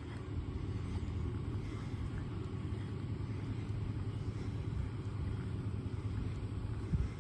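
Steady low rumble of idling vehicle engines, with a brief thump near the end.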